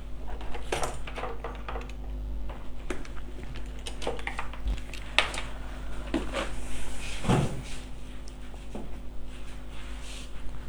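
Cutting pliers snipping and prying at the thin metal shield can on a phone's circuit board: a scattering of small irregular clicks and snaps, over a steady electrical hum.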